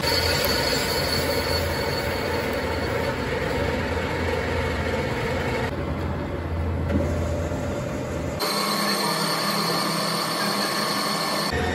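Vertical boring machine running, its rotating boring bar cutting metal inside a bore in a cast-iron block: a steady machine hum with cutting noise. The sound changes abruptly about six seconds in and again about eight seconds in.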